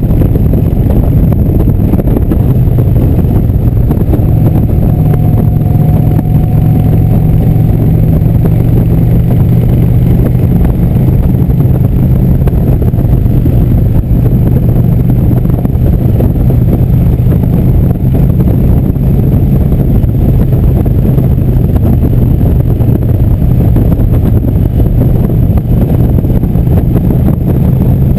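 Indian V-twin motorcycle engine running steadily at cruising speed, with wind rushing over the microphone.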